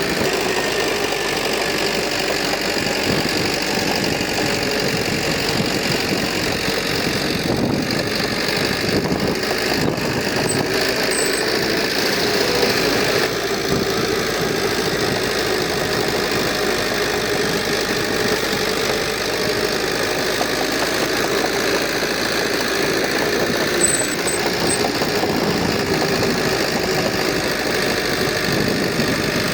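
Diesel engine of heavy earthmoving equipment running steadily, with no pauses or big changes in speed.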